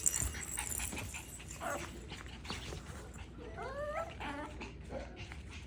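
Nine-week-old Biewer Terrier puppy whining: a few short high-pitched whines that rise in pitch, clustered about halfway through, over light scattered clicks.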